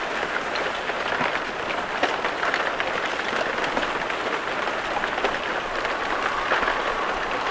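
Thin plates of fresh lake ice breaking and sliding over one another as a moving ice floe shoves them onto the shore and stacks them. It makes a dense, unbroken crackling and clinking: many small clicks over a continuous rush.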